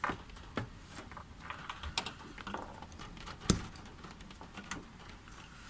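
Irregular light clicks and taps inside a car's cabin, about ten in all, with one sharper knock about three and a half seconds in.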